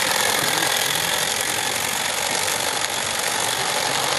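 Gauge 1 live-steam model tram engine running on its track: a steady hiss of steam with a rapid, busy mechanical beat.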